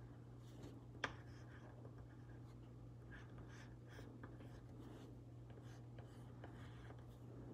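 Faint scratching of a pencil drawing on paper, with one sharp tick about a second in, over a low steady hum.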